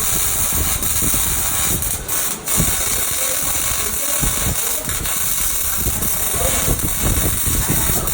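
Electric arc welding: the arc crackles and hisses steadily, breaking off for a moment about two and a half seconds in before it picks up again.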